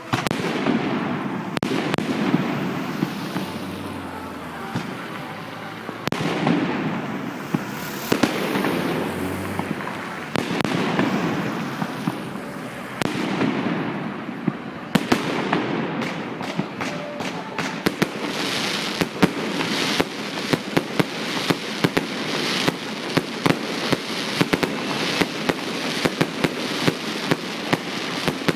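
Fireworks going off: several aerial shell bursts, each a bang followed by a fading crackle. From about halfway they give way to a rapid barrage of sharp cracks, several a second.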